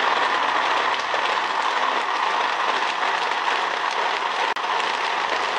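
Sujata electric mixer-grinder running at full speed, blending chopped coconut, dates and water into coconut milk: a loud, steady whir with a momentary break about four and a half seconds in.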